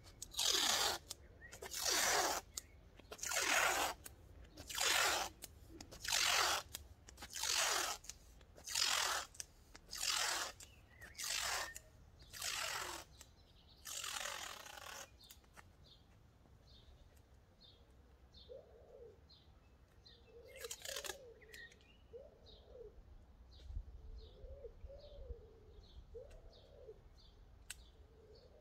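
Masking tape being pulled off the roll in a run of loud rips, roughly one a second, which stop about halfway through. After that a bird calls faintly and repeatedly.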